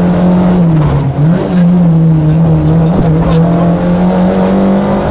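Renault Clio Williams rally car's 2.0-litre four-cylinder engine running hard at high revs, heard from inside the cabin. The engine note drops and dips briefly about a second in, then picks up again and holds steady.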